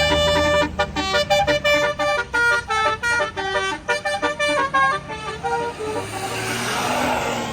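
Tour bus's Basuri telolet multi-tone horn playing a fast melody of short notes. Near the end a rushing hiss rises under the last notes.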